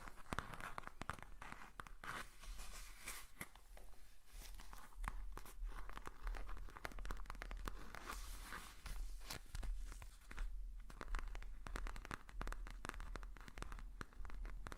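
Close-miked ASMR trigger sounds: irregular crackling, scratching and tapping clicks, many in quick succession.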